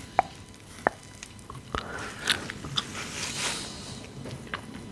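Close-miked sponge scrubbing with its soft side: a few sharp wet clicks in the first two seconds, then a soft brushing swish about three seconds in.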